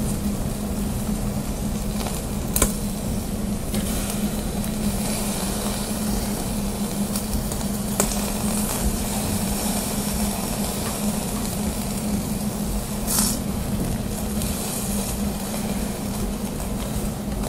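Beef steaks sizzling on an iron grate over a charcoal hibachi. A few sharp clicks come as wooden chopsticks handle the meat, and there is a short louder hiss about thirteen seconds in. A steady low hum lies underneath.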